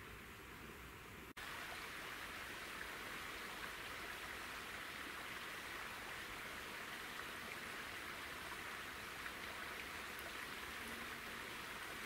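Faint, steady outdoor ambience: a soft, even hiss with no distinct events. It cuts out for an instant about a second in and returns slightly louder.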